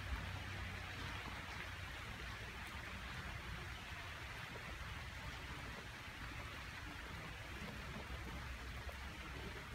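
Steady outdoor background hiss with a low rumble underneath, even throughout with no distinct events.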